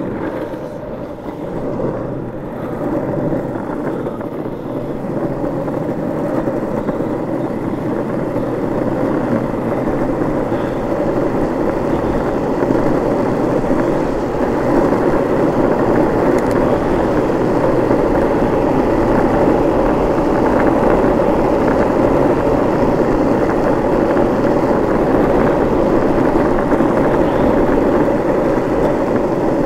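Longboard wheels rolling fast over tarmac: a steady rolling rumble that grows louder over the first fifteen seconds or so as the board gathers speed downhill, then holds.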